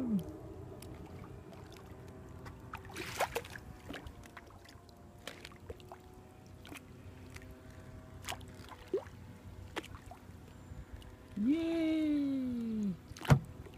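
Kayak paddle working through water weeds, water trickling and sloshing off the blade, with scattered light knocks against the plastic hull. Near the end comes a drawn-out falling vocal groan, then one sharp knock, the loudest sound.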